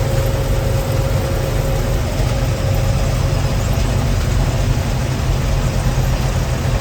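Gleaner L2 combine running steadily at high idle with its threshing cylinder engaged, a low engine drone under a thin steady whine. The cylinder is still turning faster than the roughly 600 rpm wanted for soybeans.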